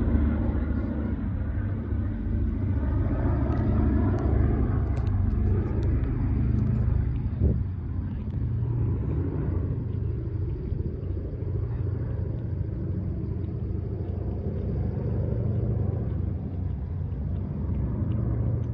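Four Wright R-1820 Cyclone radial engines of a B-17G Flying Fortress in flight: a steady low drone that eases a little as the bomber flies away. A single short knock partway through.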